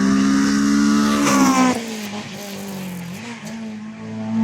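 Rally car engine accelerating hard, its pitch climbing, then dropping off suddenly about a second and a half in and carrying on more quietly. It picks up again near the end.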